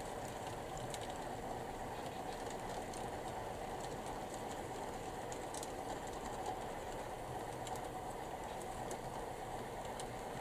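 HO-scale model train of loaded log cars rolling along the track: a steady rolling hum with scattered faint clicks.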